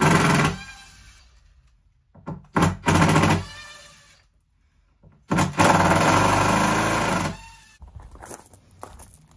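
Cordless impact driver run in short bursts, hammering with a motor whine, the longest about two seconds; each burst winds down as the motor spins to a stop. Faint clicks and crunches follow near the end.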